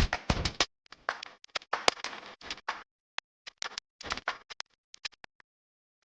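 Electrical arcing from a short circuit on a railway line: an irregular run of sharp cracks and pops, loudest at the start and thinning to scattered snaps after about four seconds.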